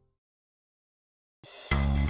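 Silence for over a second, then loud music with bass and drums starts abruptly near the end.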